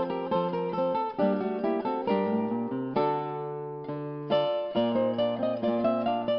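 Acoustic guitar music: a steady run of quick plucked notes, with a chord left to ring for about a second and a half around the middle.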